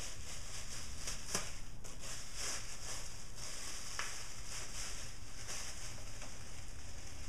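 Plastic bag being handled: a light, uneven rustling and crinkling with a couple of faint clicks.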